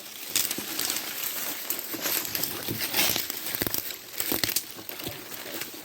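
Irregular rustling and crackling of dry leaves and brush with scattered sharp snaps, as someone moves through the scrub on foot.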